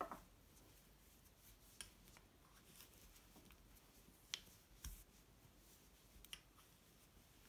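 Near silence with a handful of faint, short clicks from wooden knitting needles as stitches are worked in chunky yarn.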